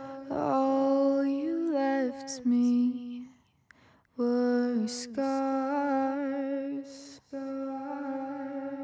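A sung vocal line playing back in a music mix: long held notes that step between pitches, with a brief break about three and a half seconds in.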